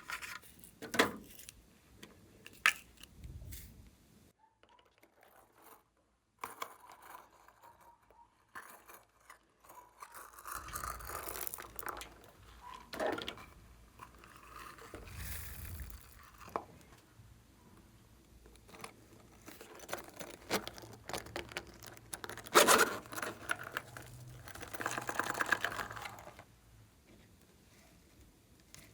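Hands mixing and stretching glossy slime: irregular sticky pops, clicks and scraping stretches, with a short pause about five seconds in.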